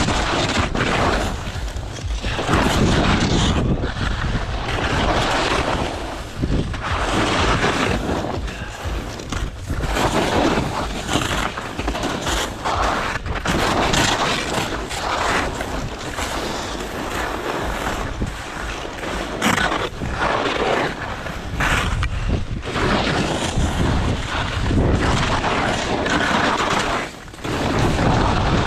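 Wind buffeting a GoPro's microphone during a fast descent of a steep mogul run, with the scrape of edges on snow surging and fading in irregular bursts every second or two as the turns come.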